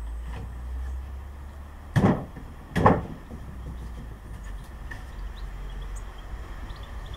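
Two solid wooden knocks, a little under a second apart, as plywood beehive panels are knocked together into their slots, over a steady low rumble.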